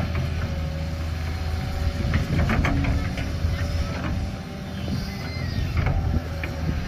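Hitachi Zaxis 200 excavator's diesel engine running steadily as it digs river mud, with a faint steady whine and scattered clanks and knocks from the bucket and arm, a cluster of them a little over two seconds in.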